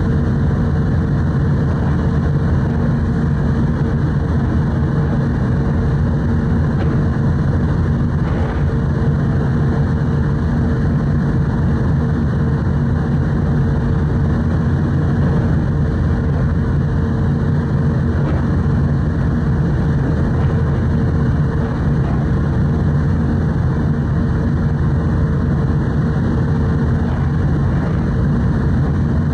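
The car ferry Kuniga's engines running steadily, a loud low hum with a few held tones heard on board the moving ship.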